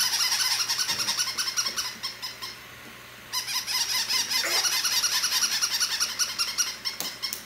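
Several battery-operated plush toy puppies yapping together with tinny, high-pitched electronic barks in rapid overlapping yips. They stop briefly about two and a half seconds in, then start again.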